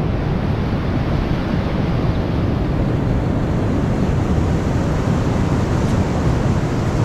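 Ocean surf washing steadily onto the shore, with wind rumbling on the microphone.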